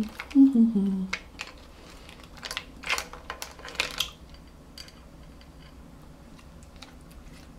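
Fingers picking through cooked snow crab legs and shells in a glass dish: a run of sharp shell clicks and crackles, thinning out after about four seconds. A short hummed vocal sound comes at the start.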